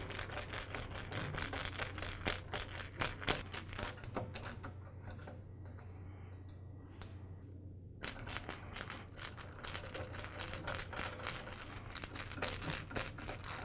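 Hand screwdriver tightening the small terminal screws that hold the wires on a replacement miter-saw switch: a quick, irregular run of light clicks and scrapes of metal on metal and plastic, which thins out for a few seconds in the middle.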